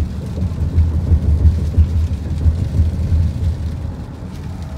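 Low, uneven rumble of a car driving on a wet highway in a rainstorm, heard from inside the car. It swells about a second in and eases off toward the end.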